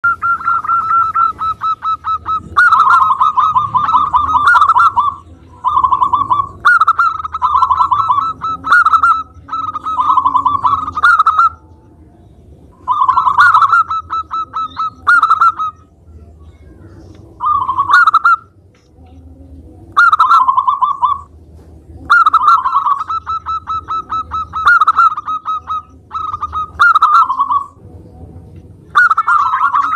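Local-type zebra dove (perkutut) singing steadily: about a dozen loud phrases of rapid staccato cooing notes, each a second or more long, with short pauses between them.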